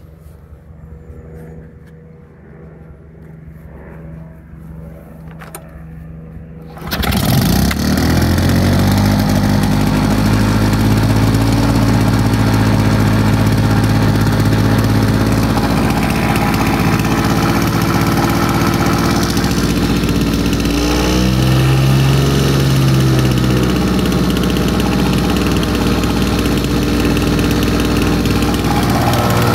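Victa Silver Streak 160cc two-stroke lawnmower engine on a cold start. It catches suddenly about seven seconds in and then runs steadily, with a brief change in engine speed about two-thirds of the way through.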